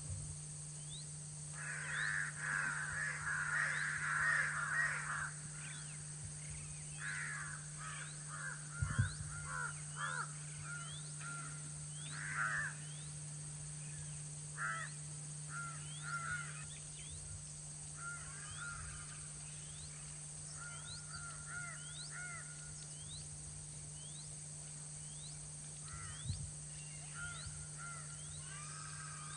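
Crows cawing around a dhole kill: a dense burst of many overlapping caws about two seconds in, then scattered caws, singly and in short runs, through the rest. Underneath, a steady low hum and faint, regularly repeated insect chirps, with a low thump about nine seconds in and another near the end.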